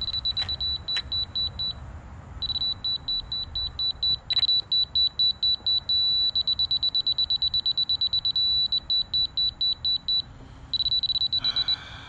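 Laser level receiver on a grade rod beeping in a single high tone, the rapid beeps speeding up and slowing as the rod is moved through the rotating laser beam, with brief breaks. Several times the beeps merge into a steady tone, the receiver's signal that it is on grade.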